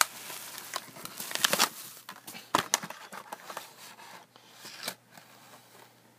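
Packaging being handled and opened: irregular crinkling, tearing and rustling with sharp clicks, dying away about five seconds in.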